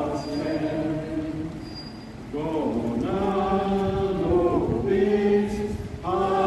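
A crowd of marchers singing a hymn together without accompaniment, in slow held notes; the singing drops away briefly about two seconds in, then the next line starts.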